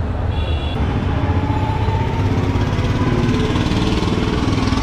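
Street traffic with motor vehicle engines running close by and a steady low rumble. A brief high beep comes about half a second in, and one engine note rises slowly in pitch over the next couple of seconds.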